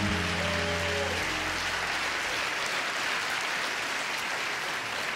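The last held notes of a recorded song die away about a second in, and an audience applauds steadily through the rest.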